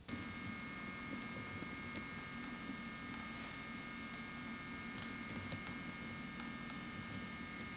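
Steady electrical hum with a faint high whine over a low hiss, unchanging throughout, with no other sound.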